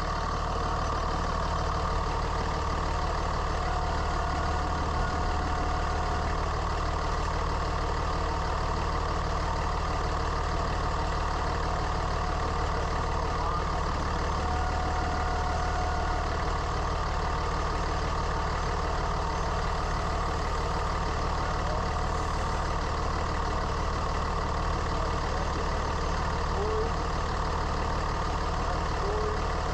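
Third-generation Dodge Ram Cummins diesel idling steadily with a constant howl. The howl comes from a bad alternator bearing.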